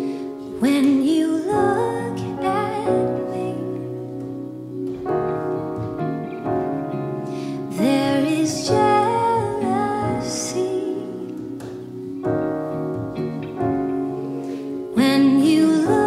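Slow live worship music: a woman sings in three phrases, about a second in, around eight seconds in and near the end, over sustained keyboard chords that hold between her phrases.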